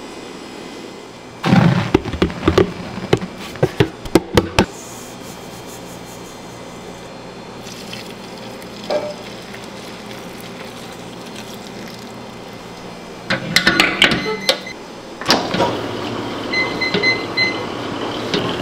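Bakery kitchen work: bursts of knocking and clattering as equipment and utensils are handled, over a steady background hum. A short run of electronic beeps, like an appliance's control panel, sounds near the end.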